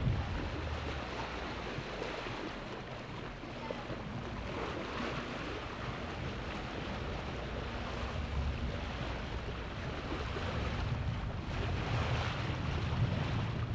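Sea water washing and splashing along a sailboat's hull as it moves through the water, with wind buffeting the microphone. The wash surges louder twice, about five and eleven seconds in.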